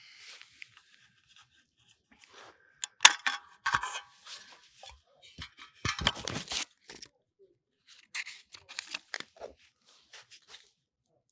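Shooting gear being handled: irregular rustling, scraping and tearing sounds with clicks, and one sharp clack about three seconds in.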